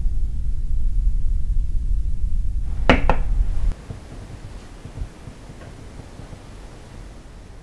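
A low rumble, broken about three seconds in by two quick, sharp knocks. The rumble then cuts off, leaving only faint room tone.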